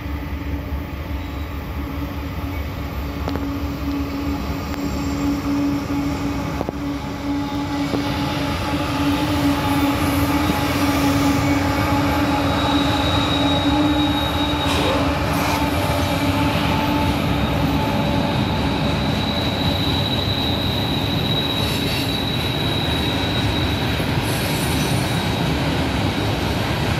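Freight train passing: diesel locomotives running, growing louder about a third of the way in, then the cars rolling by, with a high wheel squeal on and off in the second half.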